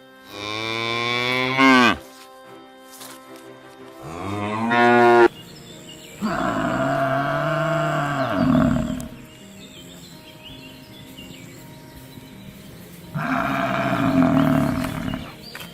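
Cattle mooing: four long, loud calls, the third the longest at about three seconds.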